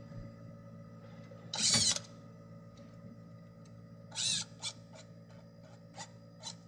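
Drill driving self-drilling screws into an aluminium water heater flange: a half-second run about a second and a half in, another short run near four seconds, then several short quick bursts as the screw is pulsed home.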